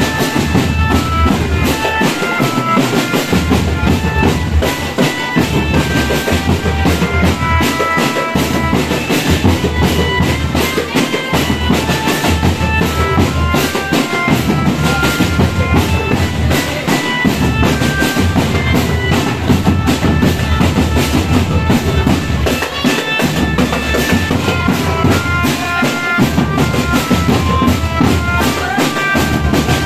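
Marching drum band playing: rapid, dense snare and bass drum beats under a reedy melody line.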